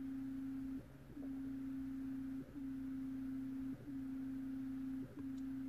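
A strange steady pure tone, a single-pitched hum, that breaks off for a moment four times at uneven intervals of about one and a half seconds. It comes on as the scan tool establishes communication with the fuel pump control unit.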